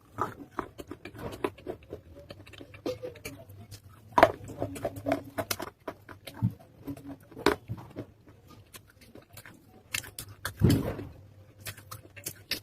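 Close-up chewing of wet baked-clay pot (matka) pieces: a steady run of irregular small crunches and wet clicks, with a few louder bites.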